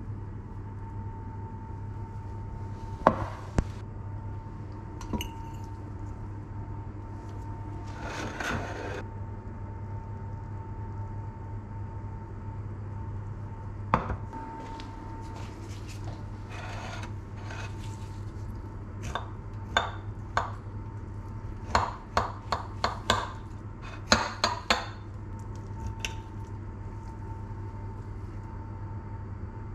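Knife and fork clicking and scraping against a ceramic plate, with a quick run of sharp clinks in the second half. Earlier, a few separate knocks and a short clatter of a baking tray and plate being handled, all over a steady low hum.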